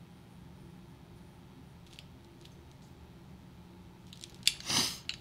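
Quiet room tone with faint scratching of a Polychromos colored pencil on paper. Near the end comes a sharp click and a short rustling rush as the pencil is put down.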